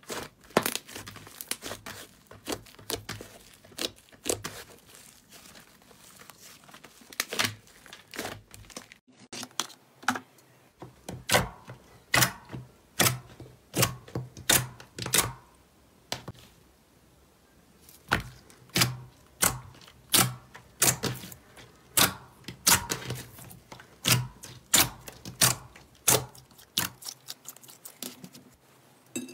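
Slime being squeezed and poked by hand, making a string of sharp crackling pops about one or two a second, sparser and quieter in the first third.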